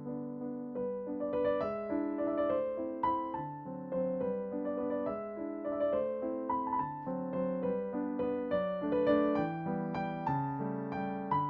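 Soft background piano music, a gentle melody of single notes over sustained chords.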